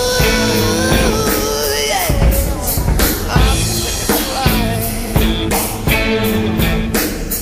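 Rock music with a drum kit beating steadily and a long held note that slides down in pitch about two seconds in.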